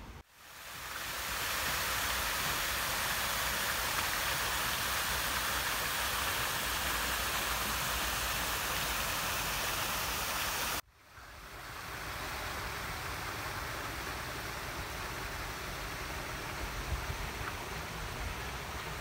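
Steady rushing of water at a penguin pool. It cuts off abruptly about eleven seconds in and gives way to a quieter steady outdoor hiss.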